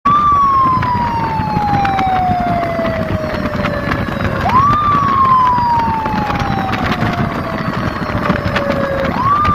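A siren wailing: its pitch shoots up, then slides slowly down over about four seconds before shooting up again, three times in all, over steady background noise.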